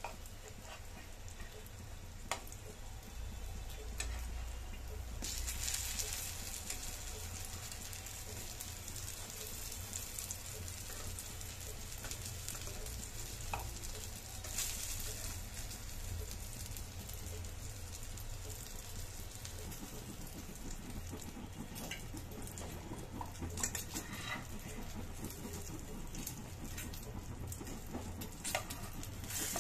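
Eggplant slices sizzling as they shallow-fry in mustard oil in a pan, with a few sharp clicks and scrapes of a metal spatula turning and lifting them.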